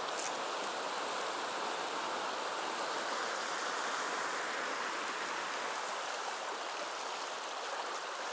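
River water rushing over rocks and shallow riffles: a steady, even wash of stream noise.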